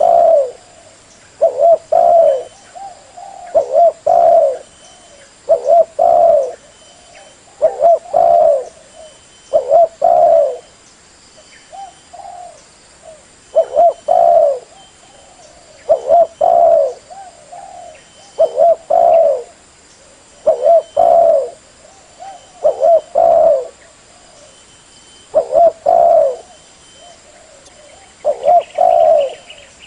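Spotted dove (derkuku) cooing over and over, a low phrase of a few notes about every two seconds, the call used as a lure for trapping.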